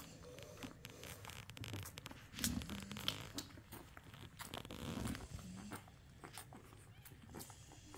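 Nano exotic American bully puppies nursing: faint wet suckling and smacking clicks, with a few short low grunts about halfway through.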